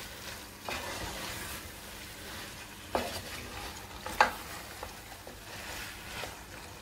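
A spatula stirring thick duck curry in a metal pot on the stove, the masala sizzling softly. There are a few sharp knocks of the spatula against the pot, the loudest about four seconds in.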